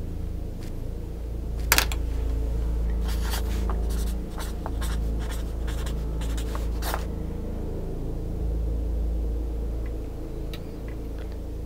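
Pen writing on a paper chart: a run of short scratching strokes over a few seconds, with a steady low hum underneath.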